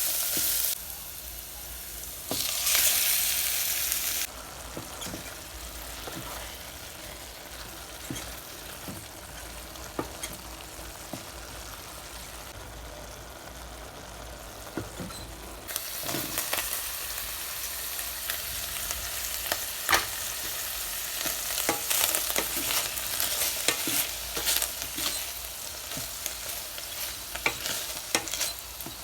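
Food sizzling in a rice cooker pot while being stirred, the spoon clicking and scraping against the pot. The sizzle is loud for the first few seconds, drops lower, then comes up again about halfway through with more frequent clicks.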